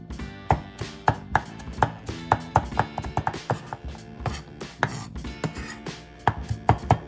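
A cleaver chopping garlic cloves on a wooden chopping board: sharp knocks about two to three a second, coming quicker and louder near the end. Background music plays underneath.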